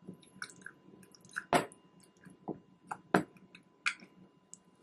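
Wooden tamper pressing soft mango pieces down into a glass mason jar: irregular wet squishing with a few sharp knocks, about four of them louder than the rest.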